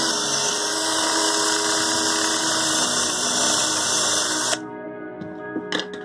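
Power drill running, its bit boring a hole through the side of a black plastic project box, then stopping about four and a half seconds in. A few light clicks follow near the end, over background music.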